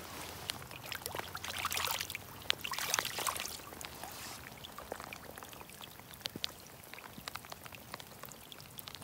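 Water sloshing and pouring as a rock is rinsed in shallow water, in two bursts in the first few seconds, followed by scattered drips and light ticks.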